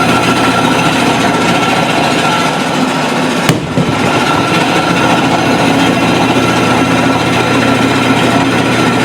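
Small bandsaw running steadily with a constant motor hum and whine, and one sharp click about three and a half seconds in.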